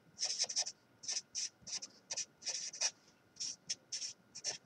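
Felt-tip marker writing on paper: a quick run of short scratchy strokes with brief pauses between them as words are written out by hand.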